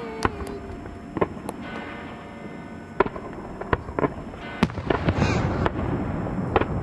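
Fireworks: a string of sharp, separate bangs from aerial shells bursting, about one or two a second, with the loudest about three seconds in. Underneath is the hiss of a spark fountain, which grows louder past the middle.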